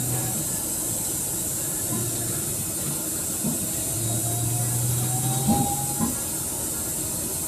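Steady road and engine noise inside a moving vehicle, with a hiss over it and a low hum that swells past the middle. Two light knocks come a second or so before the end.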